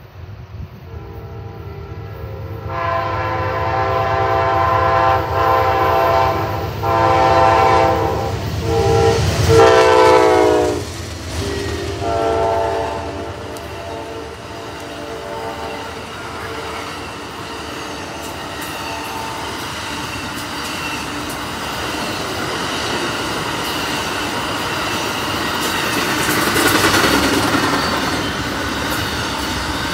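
Amtrak Auto Train passing at speed. The locomotive horn sounds a series of blasts, and its pitch drops as the locomotive goes by about ten seconds in, with one last lower blast. Then comes the steady rumble and clickety-clack of the bilevel passenger cars and autorack cars rolling past on the rails.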